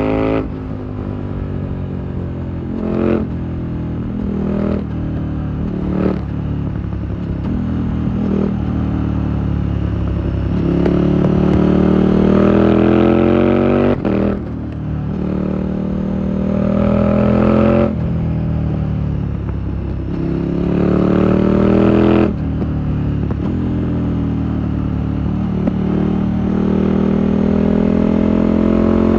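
KTM 1290 Super Duke R's V-twin through an SC-Project exhaust, ridden hard: the revs climb in long pulls and fall sharply each time the throttle shuts, with a few quick blips and shifts early on.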